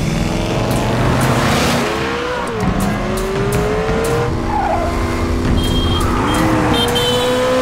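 Car engines revving hard at speed, their pitch climbing and dropping through gear changes, with tyres squealing.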